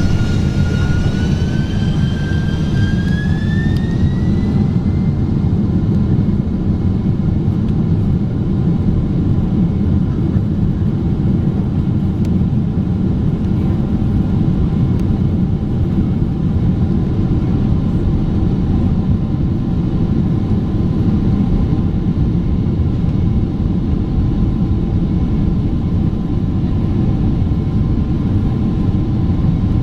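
Boeing 767-400ER's jet engines heard from inside the cabin, spooling up to takeoff thrust: a whine rises over the first few seconds and then holds steady over a loud, even roar.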